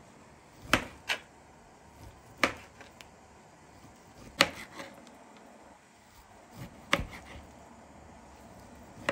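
Kitchen knife slicing carbonade (cured pork loin) into thin strips on a cutting board, the blade striking the board in sharp knocks at uneven gaps of about one to two seconds.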